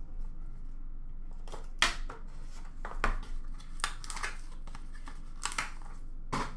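Cardboard card-box packaging being handled and pulled open: a string of short, irregular scrapes and rustles, the sharpest about two seconds in.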